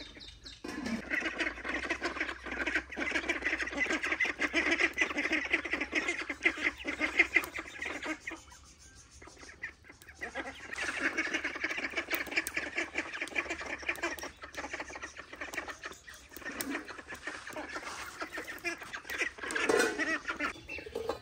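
A flock of farmyard poultry calling in a dense, continuous chatter, in two long bouts with a short lull about eight seconds in.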